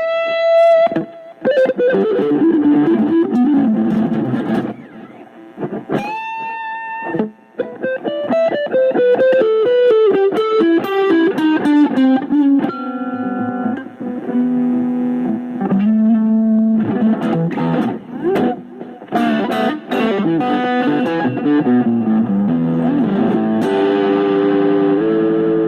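Electric guitar played through effects, sometimes distorted: a held note at the start and another about six seconds in, then long runs of notes stepping down in pitch, and busier playing near the end.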